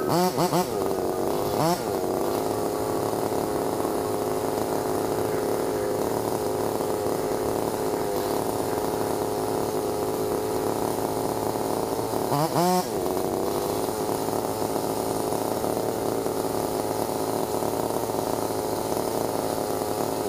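Gasoline chainsaw running steadily as it cuts into a standing tree's trunk, its engine pitch swooping briefly twice, once near the start and again about twelve seconds in.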